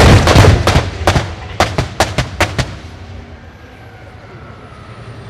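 Live-fire covering fire on a military range: a rapid, irregular volley of about a dozen sharp gun reports and bangs over roughly two and a half seconds, then a rolling echo that dies away.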